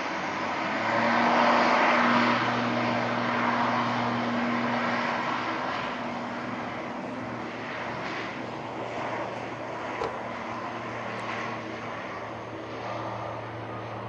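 Jet airliner passing close by: a broad engine roar that swells to its loudest about two seconds in, then slowly fades, with a steady low drone underneath.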